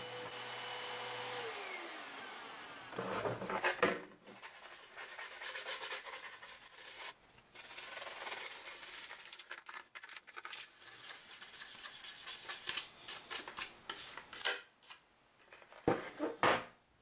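A steady pitched tone slides down in pitch and fades out about two seconds in. After it come repeated irregular rubbing and scrubbing strokes on the hard plastic case of a clock radio as it is cleaned by hand, with a couple of louder strokes near the end.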